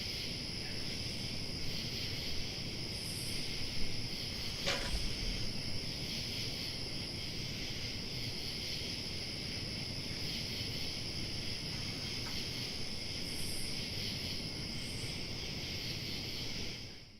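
Night insects, crickets, chirring in a steady high-pitched chorus, picked up by an outdoor security camera's microphone, with one brief click about five seconds in.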